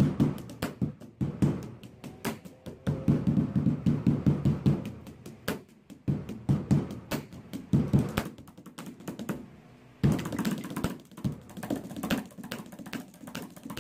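Pens drummed fast on a table top as a beat: rapid, uneven runs of sharp taps and knocks, several a second, with short breaks between runs.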